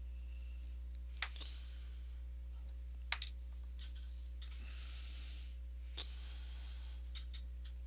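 Small metal atomizer-head parts being handled and screwed together: a few sharp little clicks, about four, over a steady low electrical hum, with a brief hiss about five seconds in.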